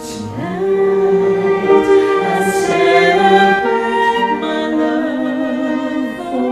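A singer with a small live ensemble of piano, flute and violin, singing a slow melody in long held notes.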